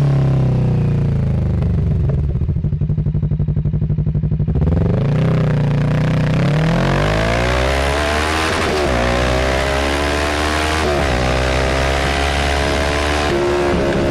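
Motorcycle engine with revs falling as it slows, then a few seconds of low, pulsing running at low revs. It then accelerates, its pitch climbing and dropping back at each of two upshifts in the second half and once more near the end, with wind noise rising as speed builds.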